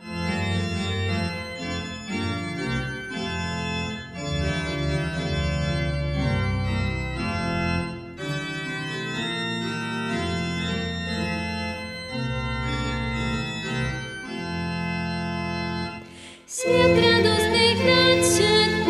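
Church organ playing sustained chords for about sixteen seconds, then a short break. About sixteen and a half seconds in, a woman's singing voice and a violin come in over the organ.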